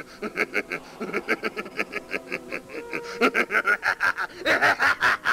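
A man laughing: a rapid, steady run of short 'ha' syllables that starts as a chuckle and grows much louder about three seconds in.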